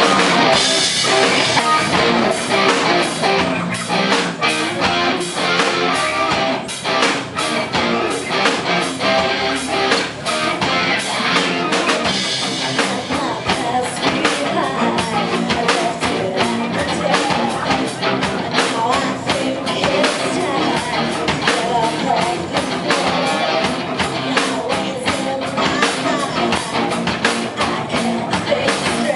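Live rock band playing, with electric guitar and a drum kit keeping a steady beat.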